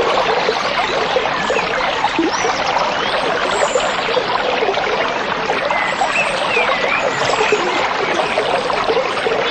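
Stream running and trickling steadily, with a few faint bird chirps over the water.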